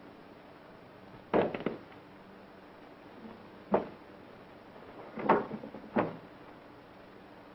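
A series of sudden heavy knocks and thumps, four main hits spread over about five seconds, the first and third each followed by a quick rattle of smaller knocks, over a steady hiss of old film sound.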